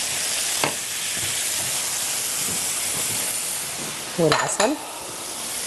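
Onions and garlic sizzling in butter and oil in a frying pan, stirred with a spatula, with a steady hiss. There is one brief tap about two-thirds of a second in.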